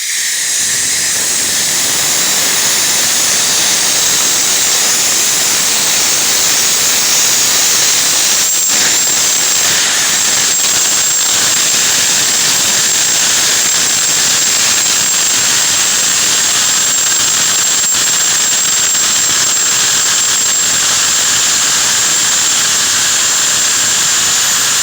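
Steam escaping from a factory steam boiler in a loud, steady hiss that starts suddenly, with a thin high whistle joining in about eight seconds in.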